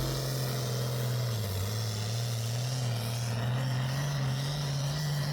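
An engine running steadily with a low hum, its pitch sagging slightly partway through and rising again near the end.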